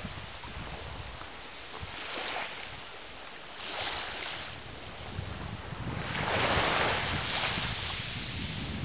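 Sea waves washing onto a beach, the surf rising and falling, with a louder wave breaking about six seconds in. Wind buffets the microphone underneath with a low rumble.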